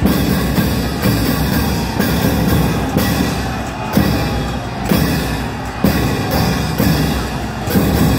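Festival procession music with drums, loud and continuous, with a sharp percussion hit about once a second.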